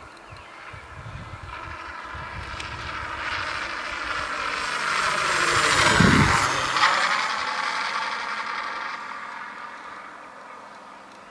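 Radio-controlled model Spitfire flying past overhead: its engine and propeller note grows steadily louder, peaks about six seconds in and drops in pitch as the plane passes, then fades away.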